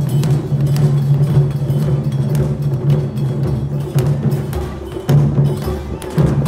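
Music with percussion: drum and wood-block-like strikes over a steady low tone.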